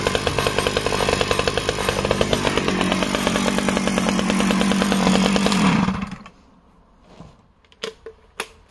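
Stihl 009 top-handle chainsaw's small two-stroke engine running at a steady, fast-pulsing pitch, then winding down and stopping about six seconds in. A few light clicks follow.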